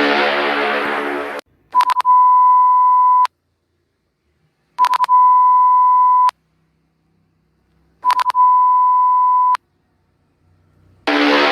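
Mock Emergency Alert System alarm tones: a harsh buzzing tone stops, then three times a few quick bursts are followed by a steady high beep lasting about a second and a half, with silence between. The harsh buzz comes back near the end.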